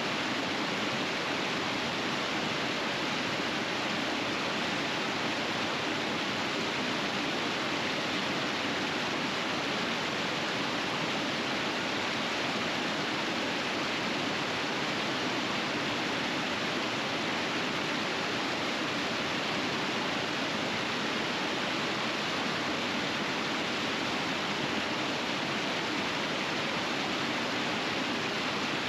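River water rushing steadily over rapids, a continuous even roar of flowing water with no breaks.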